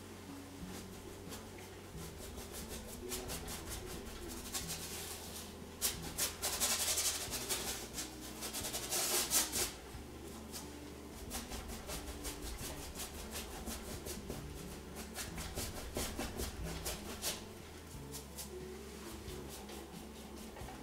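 Paintbrush scrubbing watered acrylic paint onto a stretched canvas in quick back-and-forth strokes, a dry rubbing scratch. It is loudest in two spells about six and nine seconds in.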